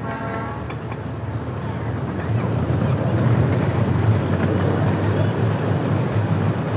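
Ride-on miniature train running along its track: a steady low rumble that grows louder a couple of seconds in.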